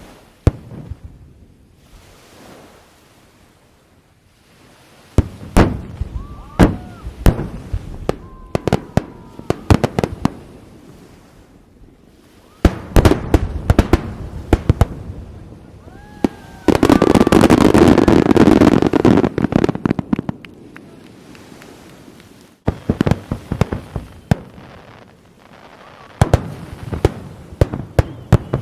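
Aerial fireworks bursting: quiet for the first few seconds, then a string of sharp, loud bangs in quick succession. About two-thirds of the way through comes a dense, unbroken barrage lasting about three seconds, and then the separate bangs resume.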